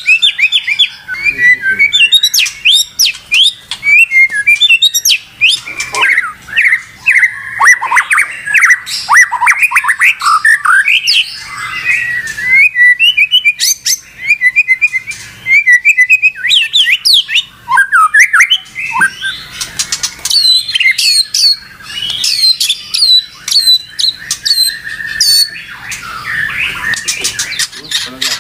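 White-rumped shama (murai batu) in full, agitated song: a loud, fast run of varied whistles, chirps and harsher squawking notes with sliding pitches, almost without a break.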